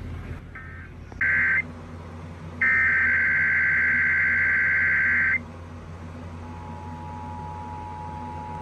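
Emergency Alert System digital data bursts of a Required Monthly Test: a short burst about a second in, then a longer one of nearly three seconds, each a harsh buzzing warble. About six and a half seconds in, the steady two-tone EAS attention signal begins.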